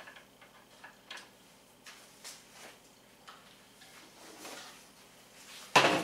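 Scattered light clicks and taps of hands handling wiring and small parts on a wooden shelf, with one louder knock near the end.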